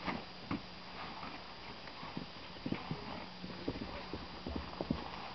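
Hoofbeats of a ridden horse on grass, a run of irregular thuds, with two louder strokes in the first second.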